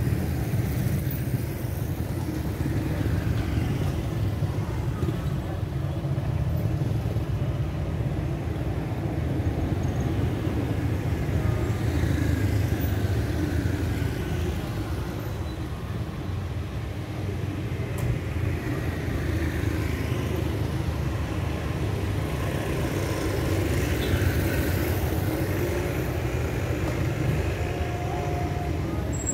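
Road traffic going by on a street: a continuous low rumble of vehicle engines and tyres, with engine notes rising and falling as vehicles pass.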